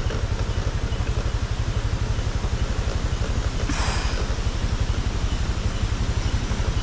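Motorcycle engine running steadily at low speed with an even throb on a steep descent. A short burst of noise about four seconds in.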